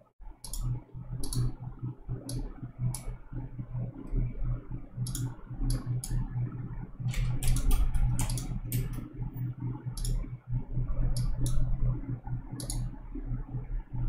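Scattered sharp clicks from a computer mouse and keyboard, with a quick run of clicks a little past the middle, over a steady low hum.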